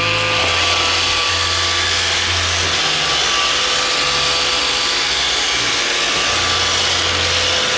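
iRobot Roomba 530 robot vacuum running: its vacuum and brush motors spin up and settle into a steady whine over a loud whirring hiss.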